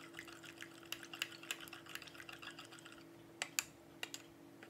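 A metal spoon stirs sugar and yeast into warm milk in a glass measuring cup, making light clinks and scrapes against the glass. A couple of sharper clinks come about three and a half seconds in, over a faint steady hum.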